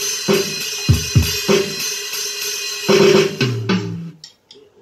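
Electronic drum kit sounds played on a roll-up drum pad with sticks and a kick pedal, through a BRIAN 10-inch, 25-watt combo amplifier. A beat of kick, snare and constant cymbal wash ends in a short tom fill about three and a half seconds in, then the playing stops.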